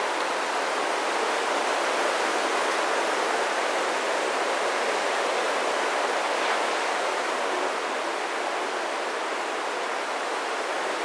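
Ocean surf breaking on the shore: a steady, even rush of noise that eases slightly about eight seconds in.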